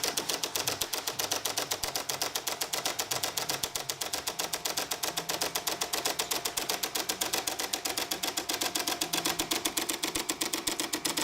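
De'Longhi Magnifica coffee machine running, its water pump working, with a rapid, even ticking that goes on without a break.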